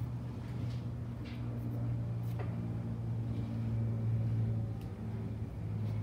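A steady low hum, with a few faint, short rustles and clicks of paper being handled.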